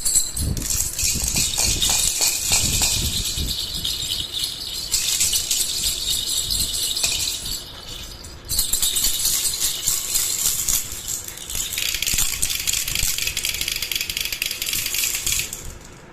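Baby rattle shaken steadily in a fast, continuous rattle, with a brief pause about halfway through.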